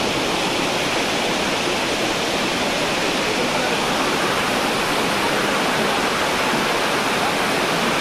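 Steady, loud rush of water from a waterfall, even and unbroken.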